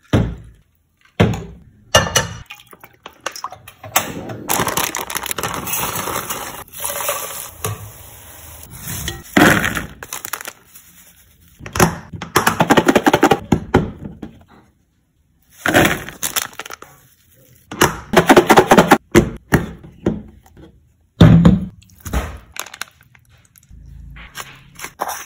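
Kitchen food-prep handling sounds: an uneven string of clicks, knocks and crackling as dishes, a glass, a plastic food container and food are handled, with short pauses between.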